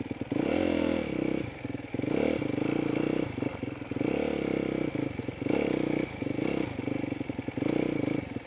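Motocross dirt bike engine being ridden on the track, revving up and down as the throttle is rolled off and back on about every second or so.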